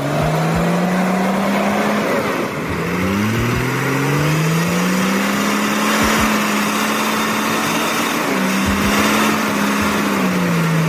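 Custom-built log truck's six-cylinder turbo engine revving hard under heavy load as the truck struggles stuck in mud. The pitch rises, drops about two seconds in, climbs again and holds, then falls away near the end.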